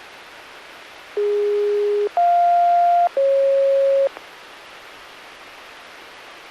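Three steady electronic tones from a municipal disaster-prevention radio broadcast, heard through a radio receiver over steady hiss. The tones last about a second each and go low, high, then middle. This is the opening signal that a broadcast chime is about to start.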